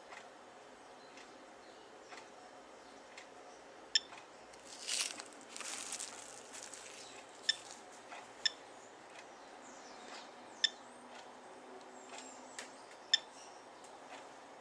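SOEKS radiation dosimeter giving short, sharp chirps at irregular intervals of one to three seconds, one for each particle it detects, at a normal background rate. A plastic rustle of the cling-film-wrapped meter being handled runs from about four and a half to seven seconds in.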